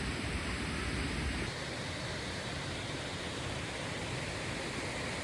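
Waterfall: a steady rush of falling water. About a second and a half in, the deep rumble drops away and the higher hiss carries on.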